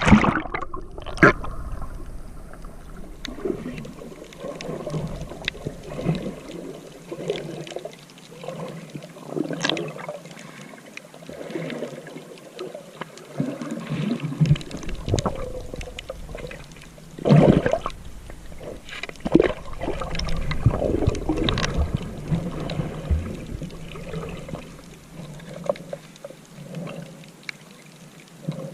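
Water splashing and sloshing irregularly, with a louder splash about 17 seconds in.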